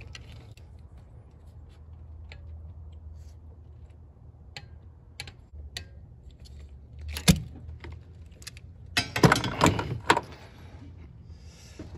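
Metal clicks and clinks from a torque wrench being worked on the high-pressure fuel pump's bolts as they are torqued to 18 ft-lbs. There is one sharp click about seven seconds in and a quick run of clicks near the end.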